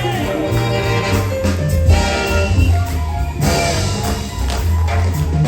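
Loud live stage-show music: a steady bass and a melody, with percussion strikes throughout.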